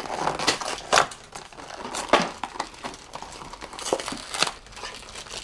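Toy packaging crinkling and rustling as it is handled and opened by hand, with a few sharp crackles at irregular intervals.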